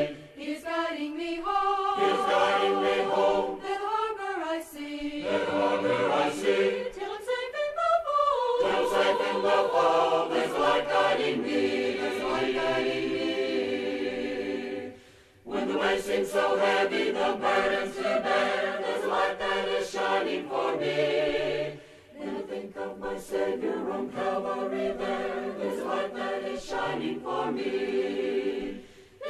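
Choir singing a cappella, in sung phrases with a short pause about halfway through and another about two-thirds of the way in.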